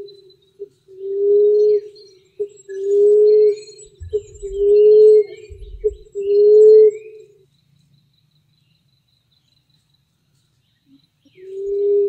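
Emerald dove cooing: a run of low hoots about a second long each, every one rising slightly, with a short note between them. The run stops about two-thirds of the way through, and a new run starts near the end. Faint chirps of other small birds are in the background.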